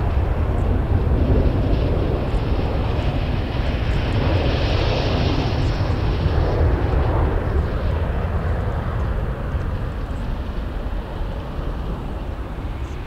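Ilyushin Il-76TD's four Soloviev D-30KP turbofans at takeoff thrust: a deep rumble with a hiss that swells about halfway through, then slowly fading as the aircraft departs.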